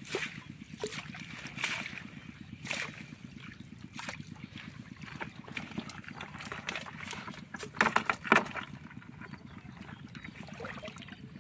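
Water splashing and dripping as a wet net fish trap is handled and its catch shaken out into a plastic bucket, with a cluster of louder splashes about eight seconds in. A steady low rumble runs underneath.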